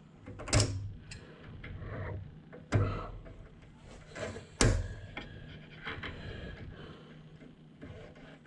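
Three sharp knocks about two seconds apart, with rubbing and light clatter between them: parts and tools being handled during work on a truck.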